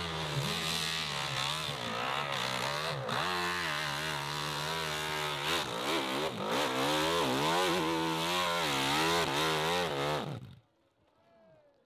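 Dirt bike engine revving hard on a steep hill climb, its pitch rising and falling repeatedly with the throttle. The engine sound cuts off abruptly near the end.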